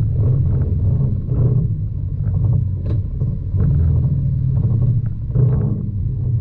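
Side-by-side UTV engine running steadily at low trail speed, with short knocks and rattles scattered through it as the vehicle bumps over the rough dirt track.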